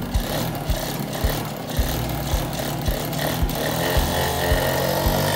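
Background music with a steady kick-drum beat, about two beats a second, over a bass line.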